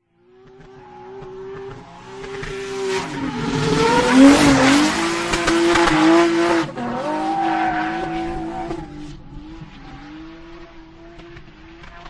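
Racing-car engine sound at a steady pitch, with a few brief dips. It fades in, grows loudest with a hissing rush in the middle, then fades out again.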